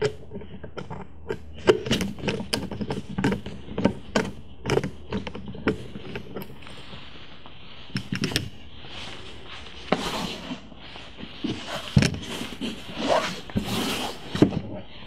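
Phillips screws being backed out of a sheet-metal CCTV power supply box with a screwdriver, giving a run of small irregular clicks. From about eight seconds on, the metal box and its lid are handled and opened, with several knocks and some scraping.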